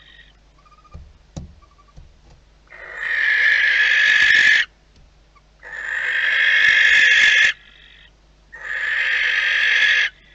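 Barn owl giving three long, harsh screeches, each about two seconds, with short pauses between them. Two soft knocks come just before the first screech.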